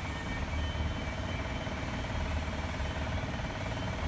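Steady low mechanical hum of running machinery, with a faint steady tone above it and no distinct clicks or knocks.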